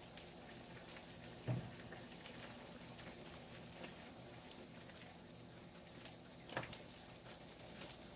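Chicken wings frying in a skillet of hot oil: a faint steady sizzle full of small crackles and pops. Two louder clacks from the metal tongs, about a second and a half in and again about six and a half seconds in.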